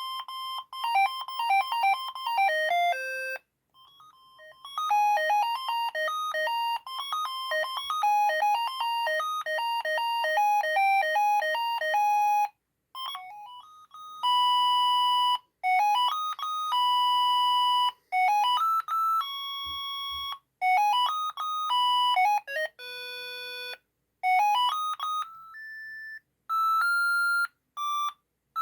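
Built-in ringtones of a Siemens ME45 mobile phone: short electronic beeping melodies, one note at a time, played one after another with brief pauses between them. A soft low knock is heard about twenty seconds in.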